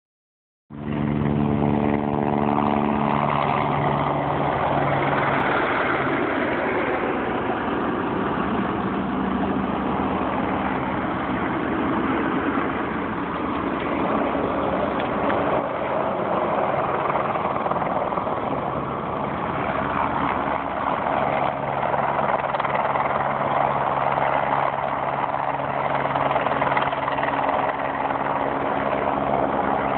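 Steady engine noise from a low-flying helicopter and pickup trucks running nearby, with a low hum that fades a few seconds in and returns about two-thirds of the way through.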